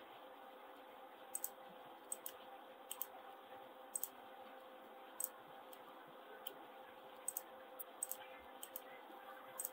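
Computer mouse buttons and keyboard keys clicking: about fifteen short, sharp clicks at irregular intervals, some in quick pairs, over a faint steady hum.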